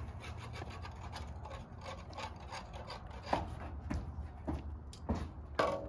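Irregular knocks and scraping of wood from a man working on a house roof, the knocks getting louder and sharper toward the end, over a low steady rumble.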